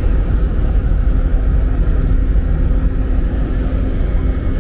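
Idling city bus engines: a steady low rumble, with a faint steady hum on top from about a second in until near the end.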